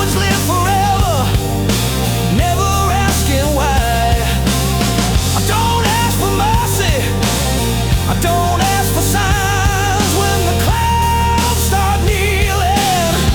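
Instrumental rock music: drums and a heavy bass under a lead line of bending, wavering notes, with no vocals.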